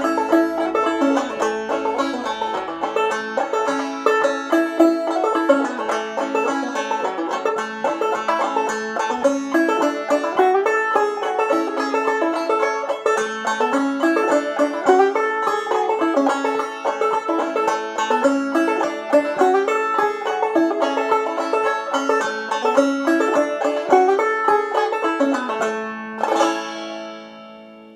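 1903 Fairbanks Whyte Laydie #2 open-back five-string banjo, tuned gDGBD and capoed to A, played clawhammer style: a fast run of plucked fiddle-tune notes. About 26 seconds in it ends on one last stroked chord that rings and fades away.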